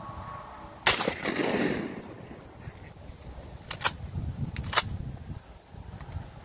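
A single shotgun shot about a second in, its report echoing for about a second afterwards. A few sharp clicks follow a few seconds later.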